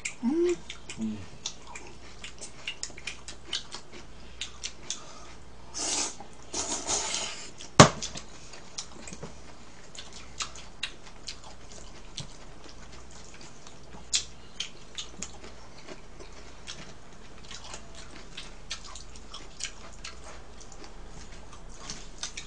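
Eating at the table: chopsticks clicking against bowls and chewing of jajang noodles and sweet-and-sour pork, with many small scattered clicks. A noisy burst lasts about a second around six seconds in, and a single sharp knock comes near eight seconds.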